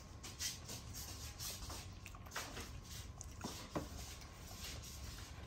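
Faint soft clicks and rustles of a young monkey chewing and handling fruit pieces, with a couple of sharper small ticks a little past the middle, over a low steady hum.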